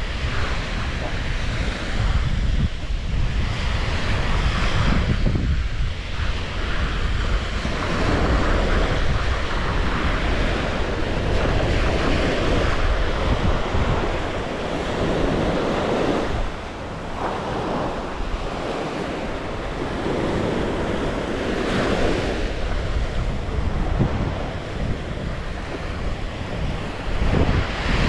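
Small sea waves breaking and washing up a sandy shore, the surf swelling and easing every few seconds, with wind buffeting the microphone.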